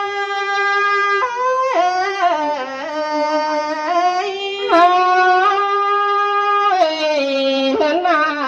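Solo reedy wind-instrument melody: long held notes joined by short sliding ornaments, playing an instrumental passage between sung verses of Thai folk song.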